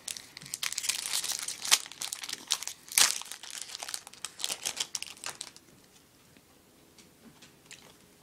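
Foil wrapper of a Topps Chrome trading-card pack crinkling and tearing as it is ripped open, a dense crackle with two sharper snaps in the first half. After about five seconds it dies down to faint ticks as the cards are handled.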